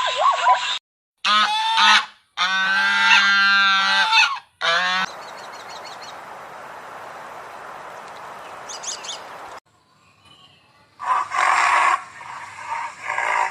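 Geese honking in several short clips cut one after another. This is followed by a few seconds of steady hiss with faint high chirps, then a brief burst of harsher calls near the end.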